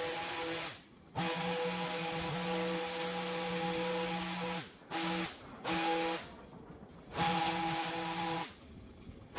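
Stihl two-stroke long-reach pole hedge trimmer running at full throttle while cutting a hedge. Its steady high whine drops away to near nothing several times as the throttle is let off, then picks up again.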